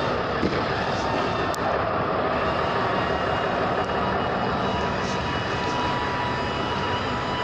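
A loud, steady droning noise with faint steady tones running through it, unchanging throughout.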